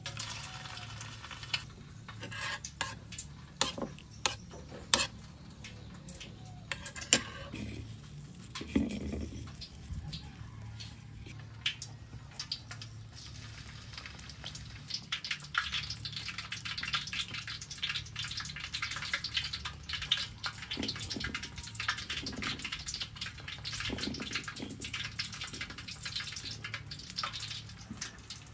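Rice-coated chicken feet frying in hot oil in a wok: sizzling and spitting, with many sharp clicks in the first dozen seconds. From about halfway through it becomes a dense, steady crackle. A steady low hum runs underneath.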